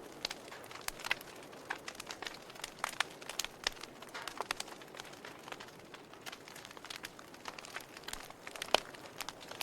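Wood fire crackling in a fireplace: irregular sharp pops and snaps, several a second, over a soft steady hiss, with the loudest pop near the end.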